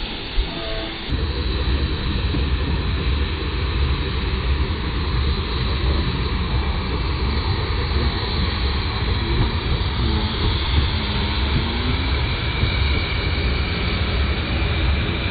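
Steady low rumble and rush of a miniature steam locomotive running along a 5-inch gauge track, heard slowed down in slow motion, setting in about a second in.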